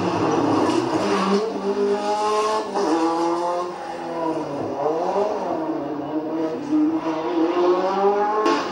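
Renault 5 Turbo rally car's engine revving hard under full acceleration as it passes and pulls away, its pitch climbing and breaking at each upshift. The pitch drops briefly in the middle, then climbs again.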